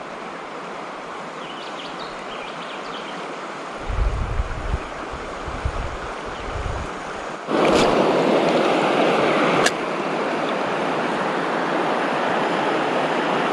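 Steady rush of flowing river water, with wind buffeting the microphone in low thumps a few seconds in. About halfway through the rushing gets abruptly louder, with a sharp click as it changes and another about two seconds later.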